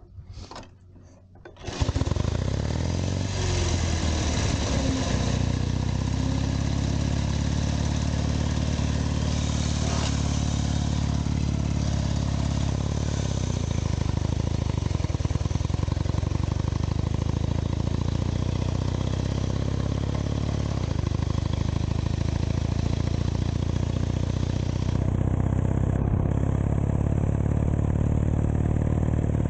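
1920 Douglas flat-tank motorcycle's flat-twin engine restarting after a stall: a few clicks, then the engine catches about two seconds in and runs steadily.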